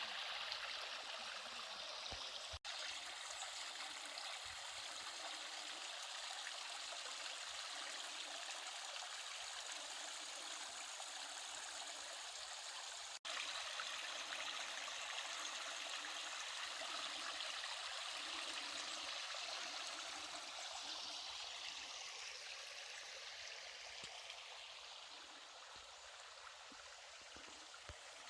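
A mountain stream cascading down a sloping rock slab as a low slanting waterfall, a steady rushing of water. The sound cuts out for an instant twice and grows a little quieter near the end.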